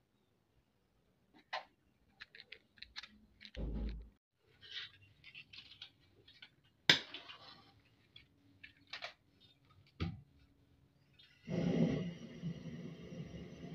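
Clicks and knocks of an aluminium pot and a gas burner on a small LPG cylinder being handled, with a dull thump and one sharp click. About eleven seconds in, the burner lights and runs with a steady gas-flame hiss.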